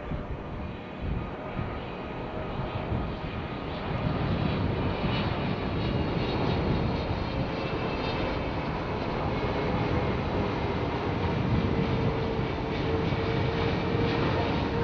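Boeing 777-300ER's GE90-115B turbofan engines passing low overhead on final approach with gear down: a steady jet rumble that grows louder about four seconds in, with a whining tone over it.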